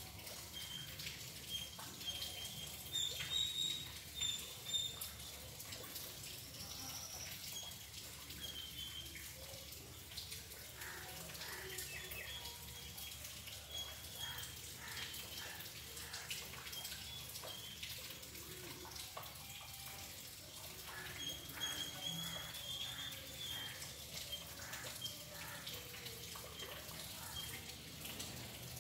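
Small birds chirping in short, high notes repeated again and again, loudest a few seconds in, over a faint hiss with scattered light ticks.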